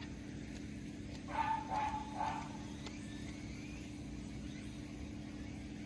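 A tabby-and-white cat meowing: three short meows in quick succession about a second and a half in, over a steady low hum.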